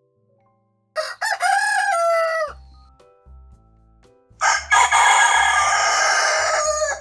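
Rooster crowing twice. A shorter crow about a second in ends on a falling note, and a longer, rougher crow starts past the middle and cuts off just before the end.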